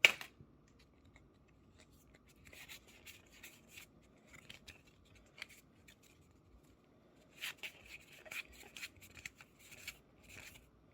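A sharp tap, then on-and-off rustling and sliding as Pokémon trading cards and a foil booster-pack wrapper are handled, in two busier spells.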